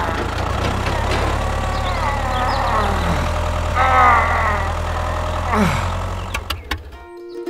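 A small motor running with a steady low hum, under a few high-pitched, sliding voice exclamations. The hum stops about seven seconds in and music begins.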